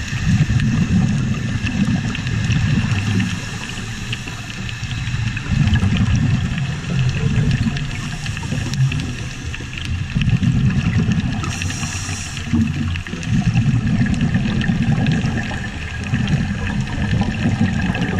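Scuba regulator breathing heard underwater through a camera housing: about five long, low bubbling exhalations a few seconds apart, and one short hiss of an inhalation about two-thirds of the way through.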